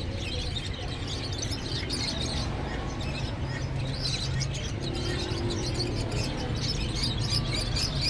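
Many small caged birds, budgerigars among them, chirping and twittering continuously over a steady low background rumble.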